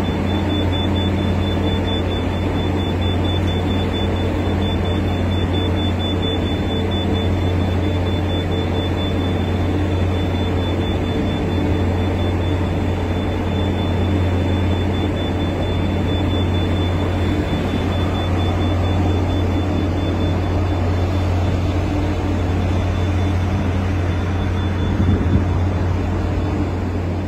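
Steady deep machinery drone on a warship's deck at sea, with a thin high whine that stops about two-thirds of the way through.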